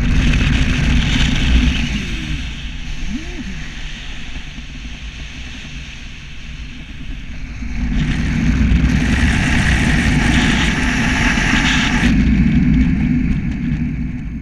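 Rushing wind buffeting the microphone of a paraglider pilot's camera in flight. It is a dense rumble that eases a little, then swells louder again about eight seconds in during steep turns, and dies down near the end.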